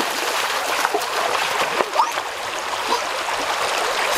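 Shallow river water running over stones, with splashes from bare feet running through the water that stop as the runner reaches the gravel bank.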